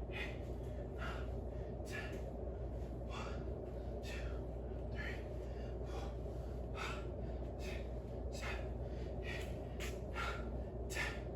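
A man breathing in short, audible breaths about once a second, from the exertion of warm-up arm rolls, over a steady low room hum.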